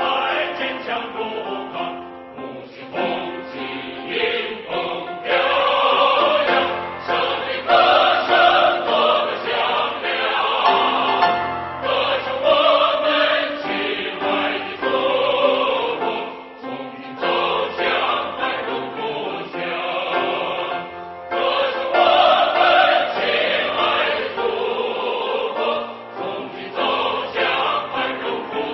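Background choral music: a choir singing sustained notes.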